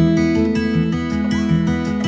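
Background music: acoustic guitar strumming and picking notes at a steady pace.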